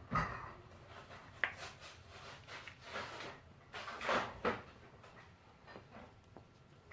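A dog chewing, shaking and tugging at a plush squeaky toy: irregular scuffs, rubs and knocks coming in short bursts.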